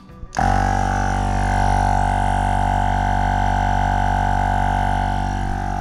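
Portable electric tyre inflator switching on about half a second in, its small motor-driven compressor then running with a loud, steady drone as it pumps air into a car tyre.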